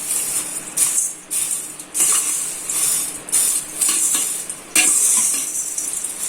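Crisp fried omapodi (besan sev) tossed and stirred in a bowl with fried curry leaves, a dry crunchy rattling that comes in a run of short strokes.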